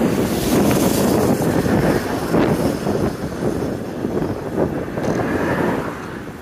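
Wind buffeting the microphone of a phone carried by a cyclist riding along, a loud, rough low rush that rises and falls with the gusts.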